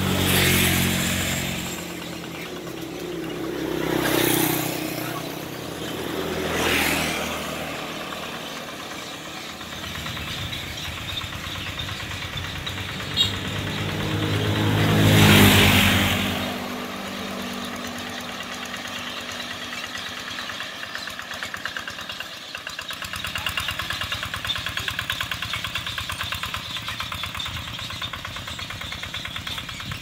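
Motor vehicles passing close by one after another: four passes that each rise and fade over a second or two, the loudest about halfway through. A small engine runs steadily underneath, with a single sharp click shortly before the loudest pass.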